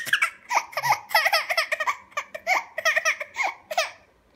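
Toddler laughing in a rapid run of short, high-pitched bursts that stops near the end.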